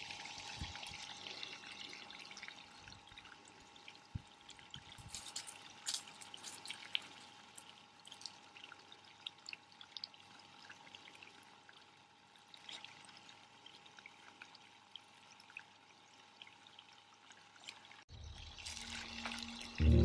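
Water running out of the open end of a garden hose onto soil: a steady trickling splash, with scattered small clicks.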